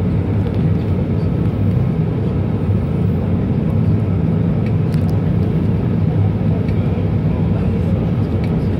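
Steady low drone of an Airbus A320 heard from inside its cabin as the airliner moves slowly on the apron.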